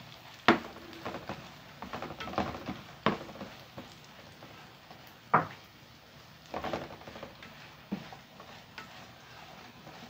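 Spatula scraping and knocking against a frying pan as it stirs pieces of baladi bread toasting in ghee and oil, over a faint sizzle. The sharp scrapes come irregularly, loudest about half a second, three seconds and five seconds in.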